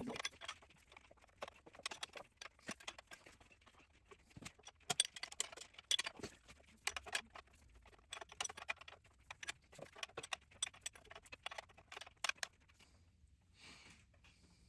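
Irregular metallic clicks and clinks of a wrench working a line-fitting nut on a tractor's diesel injection pump, stopping near the end.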